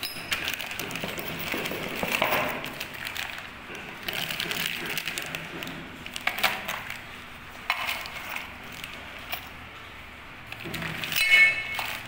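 Plastic packaging rustling and crinkling as night-latch lock parts are handled and lifted out of a cardboard box, with a few light clinks of metal parts. A louder ringing metallic clink comes near the end.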